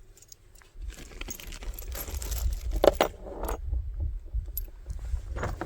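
Brass cartridges clinking and clicking as they are handled and loaded into a revolver's cylinder, with a sharper metallic click near the middle and another near the end.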